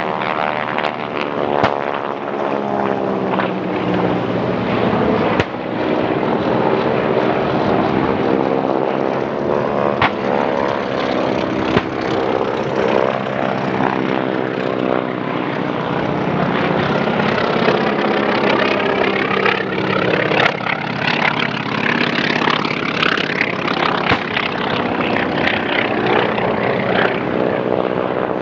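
Several radial-engine propeller warplanes flying low passes. The engine drone sweeps and wavers as they pass, with a few sharp cracks now and then.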